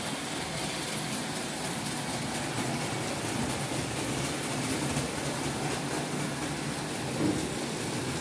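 Märklin H0 model trains running on the layout: a steady whir of the small locomotive motors and wheels rolling over the metal track, with a low hum underneath.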